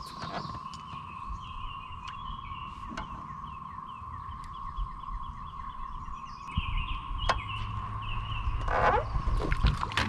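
Steady droning chorus of cicadas, with a songbird singing a run of quick repeated chirping notes over it for the first several seconds. A low rumble comes in about two-thirds of the way through, and a short rushing noise sounds near the end.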